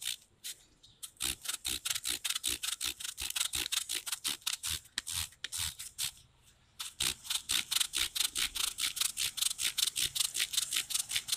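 A rubber ball made of glued flip-flop pieces being rubbed quickly back and forth on sandpaper, about five scratchy strokes a second, to grind it into a round shape. The strokes stop briefly about six seconds in, then start again.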